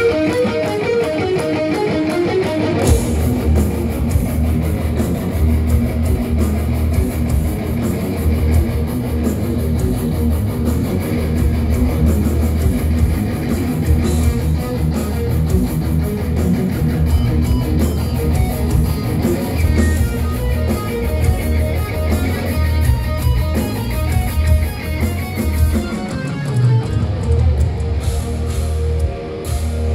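Live thrash metal from a full band: distorted electric guitars, bass and drums. A lone guitar plays a melodic line at first, and the whole band crashes in about three seconds in.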